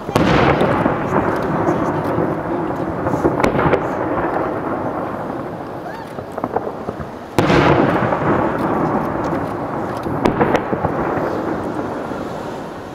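Aerial firework shells bursting: two big booms about seven seconds apart, each followed by a long rolling rumble that fades slowly, with a few smaller crackling pops in between.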